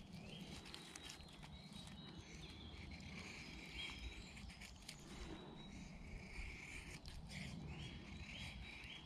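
Faint scraping strokes of a knife blade shaving thin curls down a wooden stick to make a feather stick. Birds sing in the background, with a phrase of repeated rising notes near the end.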